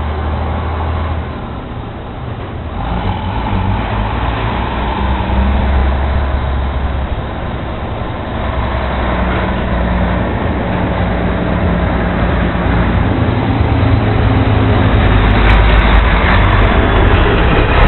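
Rear-loader garbage truck's diesel engine running as the truck approaches, growing steadily louder, its engine note shifting a few times.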